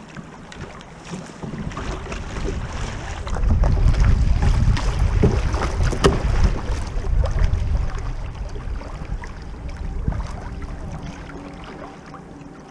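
Water rushing and splashing around a kayak hull as it runs a shallow riffle, with wind buffeting the bow-mounted microphone. The rumble builds after a couple of seconds, is loudest in the middle and eases off near the end, with scattered sharp splashes.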